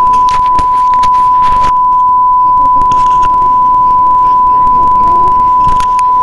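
A steady, high-pitched electronic beep tone held unbroken at one pitch, with fainter clicks and bursts of noise beneath it.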